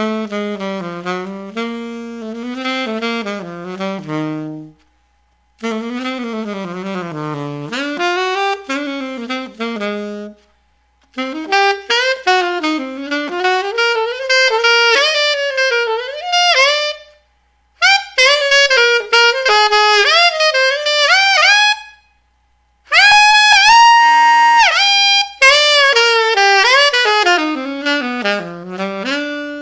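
Alto saxophone fitted with a Seinsia Heritage TX mouthpiece, played solo and dry with no added reverb. It plays five short melodic phrases separated by brief pauses, dipping into the low register and, about two-thirds of the way through, rising to a bright held high note.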